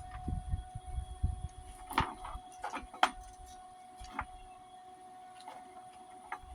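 Several sharp knocks and clicks spaced irregularly over a steady hum, with low rumbling thumps during the first second and a half; no welding arc is running.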